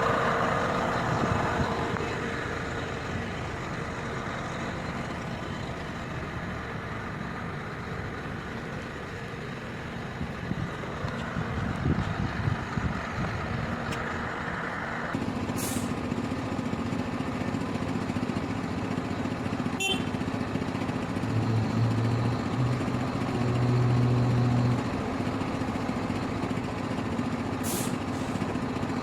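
Heavy-equipment diesel engine running steadily. About halfway through its note changes to a steadier low hum, and a few short sharp hisses sound over it.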